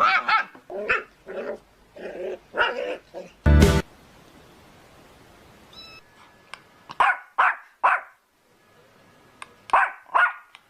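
A dog barking in short bursts, with one loud thump about three and a half seconds in, a pause, then a few more barks near the end.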